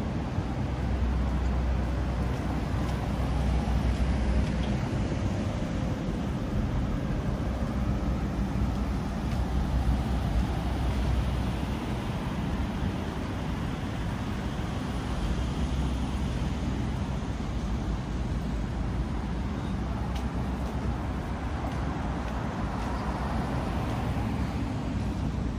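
Steady city street traffic noise: road vehicles running past with a continuous low rumble.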